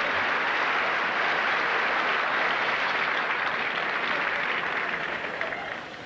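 Theatre audience applauding, a steady wash of clapping that dies down near the end.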